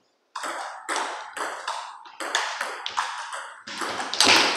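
Table tennis rally: the ball clicking off the bats and bouncing on the tables in quick alternation, about two to three hits a second, with one louder hit near the end.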